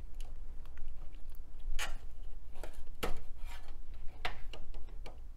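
Scattered light clicks and scrapes of fingers working a Pentium MMX chip in its Socket 7 ZIF socket to pull it out. The sharpest clicks come about two, three and four seconds in.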